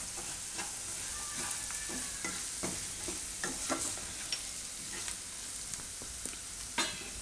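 Chopped vegetables and peanuts sizzling in oil in a nonstick kadai, stirred with a wooden spatula that scrapes and taps against the pan at irregular moments over a steady frying hiss.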